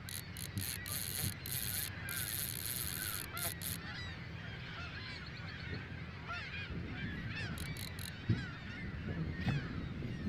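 A flock of geese calling, many overlapping honks throughout. A bright, hissy rattle comes and goes in the first few seconds.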